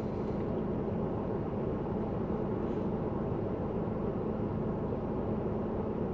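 Steady low hum of a car running at idle, heard from inside it, with no changes.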